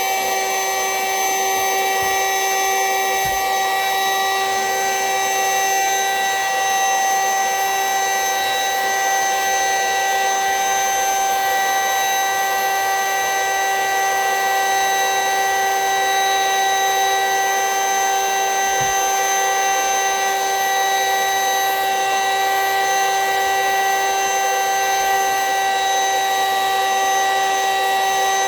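Vacuum cleaner running with a steady whine, sucking the air out of a vacuum-seal storage bag. Its pitch holds level throughout.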